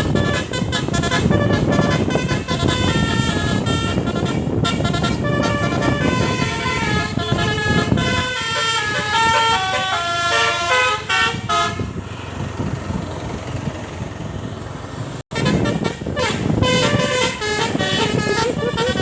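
Bus telolet musical air horn, a multi-trumpet roof-mounted set, playing a Minang melody note by note over a low rumble. The tune fades about twelve seconds in, cuts off sharply a few seconds later, then starts again.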